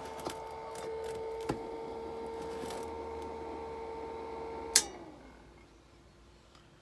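Battery-powered blower fan of a Vulkan 2.0 bee smoker running with a steady whine, with a couple of small clicks as the smoker is handled. About five seconds in, a sharp click switches it off and the whine falls in pitch as the fan winds down.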